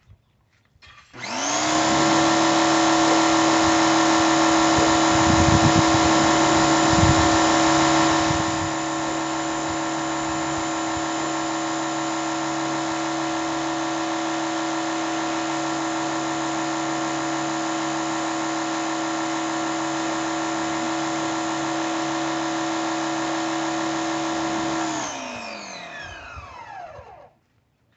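Pressure washer running, its motor and pump giving a steady high hum while the wand sprays water onto a metal grate. It starts suddenly about a second in and gets a step quieter about a third of the way through. Near the end the trigger is released and the motor winds down with falling pitch.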